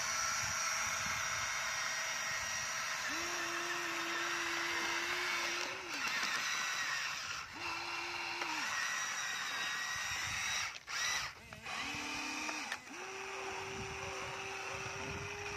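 Electric gear motors of a Huina radio-controlled toy excavator whirring as it swings, tracks and works its arm. A steady whine switches on and off several times, running about 3 to 6 seconds in, briefly near 8 and 12 seconds, then holding from about 13 seconds on.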